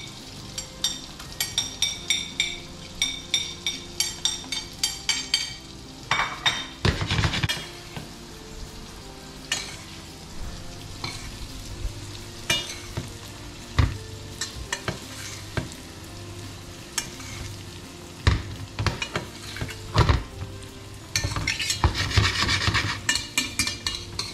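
Fish fillets sizzling gently in butter and oil in a stainless steel frying pan over low heat. A metal spoon clicks and scrapes against the pan and plate, with a quick run of taps in the first few seconds and a busier clatter near the end.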